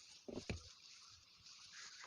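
Two light knocks close together, about a third and half a second in, then faint rubbing: handling and wiping inside a refrigerator during cleaning.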